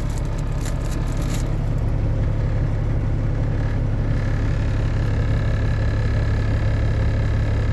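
Diesel truck engine idling steadily, a constant low hum, with a few faint clicks in the first second or so.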